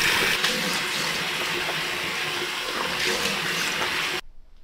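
Running water, a steady rushing that cuts off suddenly near the end.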